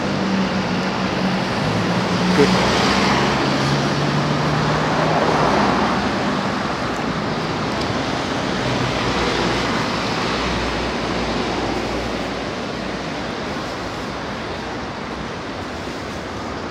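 City road traffic passing: a steady wash of tyre and engine noise, with a low engine hum from a passing vehicle in the first few seconds, easing off slowly after that.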